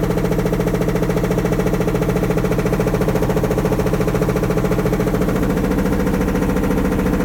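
Maytag Neptune front-load washing machine spinning with a load of only pillows, its drum shaking the cabinet in a loud, fast, even knocking that runs steadily. This is the loud, shaky noise it makes when it spins faster.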